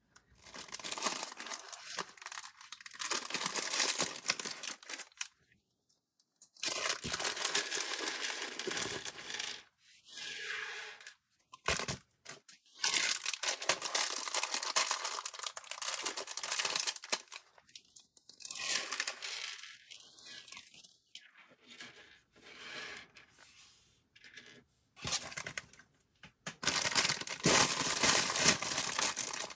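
Plastic bags of LEGO parts being torn open and rustled. The sound comes as a series of noisy rips and crinkles, some short and some lasting several seconds, with brief pauses between them.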